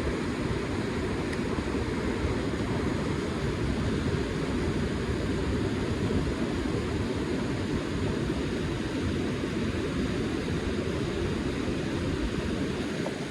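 Fast-flowing river water rushing steadily, a dense even noise with no breaks.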